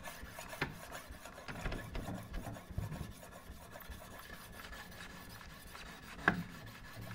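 Sharpening stone on the arm of a Wicked Edge guided sharpener scraping along a clamped chef's knife's edge in short back-and-forth passes: test passes to find the sharpening angle. A sharp click about six seconds in.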